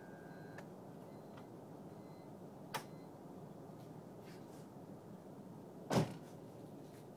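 Sounds from a car just switched off: a thin high steady tone cuts off about half a second in, followed by a sharp click near the middle and one louder thump about six seconds in, over a low steady hum.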